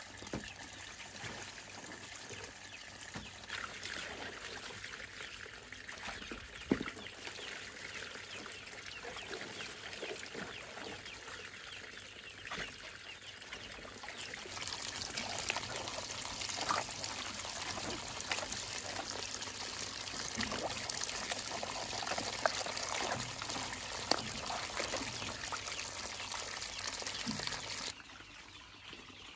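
Water pouring and trickling, with scattered light knocks. The flow gets louder and brighter about halfway through and stops shortly before the end.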